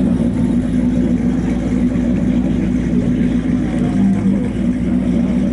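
A piston engine running steadily at an even low speed.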